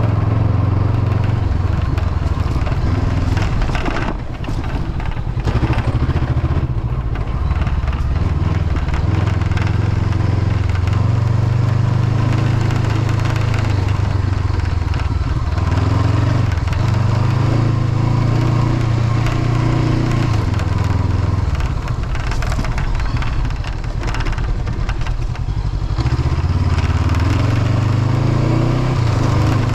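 Honda CB500X's parallel-twin engine running under way, its note rising and falling several times with short dips in level, along with a rattling from the windshield, which is loose from a lost mounting screw.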